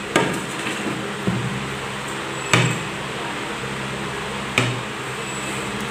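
A serving plate set down on a table, then drinking glasses knocked down onto it: four sharp clinks spread over a few seconds, the loudest about two and a half seconds in. A steady low hum runs underneath.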